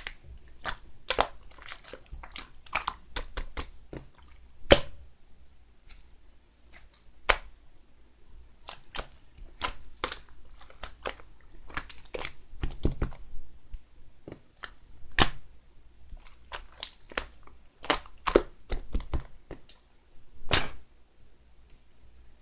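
Two-layer slime being handled and pressed by hand, giving irregular sharp clicks and pops at uneven intervals.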